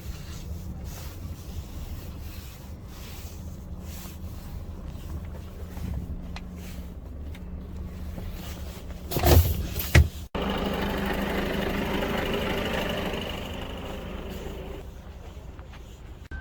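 Volvo FH truck engine running steadily under way, with two loud knocks about nine and ten seconds in. After a sudden break, a louder, broader machine noise runs on and fades near the end.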